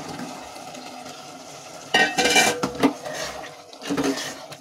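Soaked kidney beans tipped from a steel bowl into a metal pressure cooker of fried masala, then a metal spoon clanking and scraping against the cooker as they are stirred in, loudest about two seconds in and again near the end.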